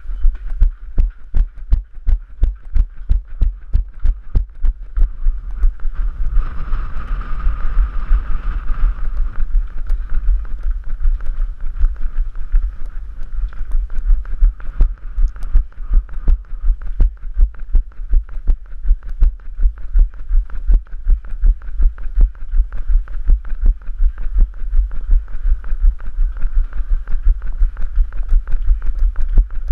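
Running footfalls of the person wearing a head-mounted GoPro, jolting the camera: deep, even thuds about three a second. A steady higher hum runs underneath and is louder for a few seconds about six seconds in.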